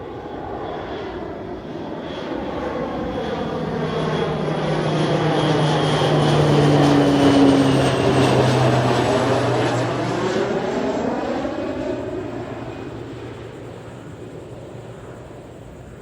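Airplane passing low overhead: its engine noise swells to a peak about halfway through, the tones drop in pitch as it goes by, then it fades away.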